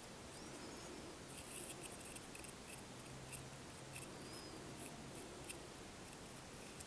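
Faint scraping and small clicks of a metal palette knife pressing thick paint into a small plastic watercolour half pan.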